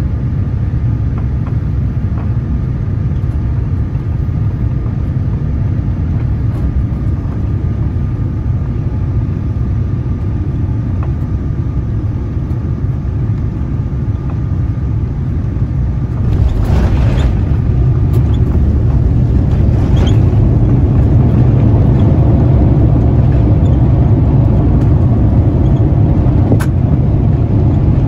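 Inside the cabin of a Boeing 787-9 landing: a steady rumble of engines and airflow with a faint steady whine during the last of the approach. About halfway through, the touchdown comes as a sudden jolt, and the rumble then grows louder as the aircraft rolls out on the runway under reverse thrust.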